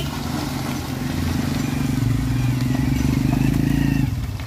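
Motor vehicle engine running steadily at a low, even pitch, dipping briefly about four seconds in.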